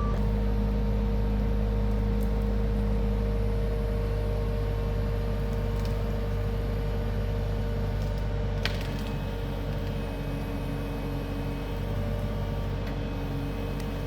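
An engine running steadily at idle: a low drone with a fixed tone above it, and a single sharp click about nine seconds in.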